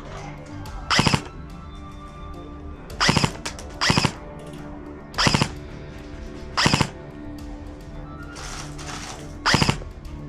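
Airsoft guns fired in six short rapid-fire bursts, each a quick rattle of shots, over steady background music.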